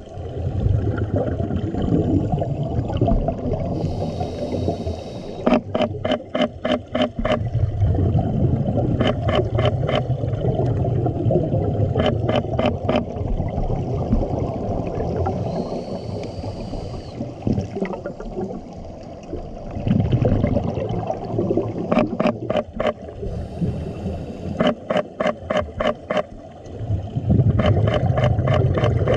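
Scuba regulator breathing heard underwater: a short hiss on each inhale, then a burst of rumbling, crackling exhaust bubbles on each exhale, repeating over several breaths.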